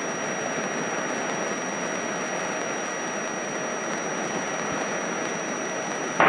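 Steady cabin noise of a light airplane in cruise flight: an even rushing hiss from the engine, propeller and airflow, with a thin, steady high-pitched whine over it.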